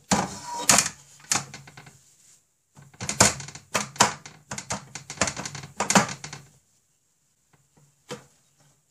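Upturned metal cupcake pan clattering on a round metal cake tin and being knocked on its cups through a knitted cloth, to shake the baked oat cookies loose. Quick runs of sharp metallic knocks in two spells, then a single knock near the end.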